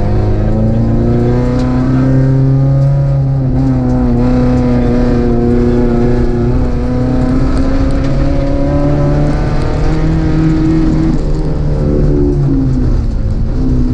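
Rally car's engine heard from inside the cockpit at full stage pace on a gravel road. The engine pitch climbs, holds and drops back several times as the driver works the throttle and gears, over a steady rumble of road noise.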